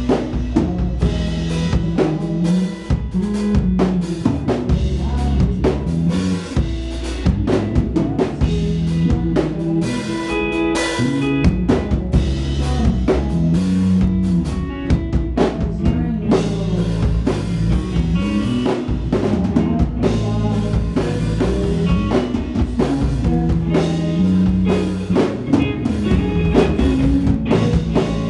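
Live rock band playing an instrumental stretch: electric guitar over a full drum kit, with dense, steady drum hits throughout.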